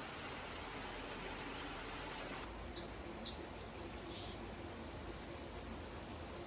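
Steady hiss, then about two and a half seconds in the background changes abruptly and a small bird chirps, a quick run of short high calls lasting a few seconds, over faint outdoor ambience.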